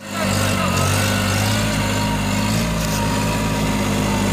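Kubota 27 hp tractor's diesel engine running steadily at a constant speed.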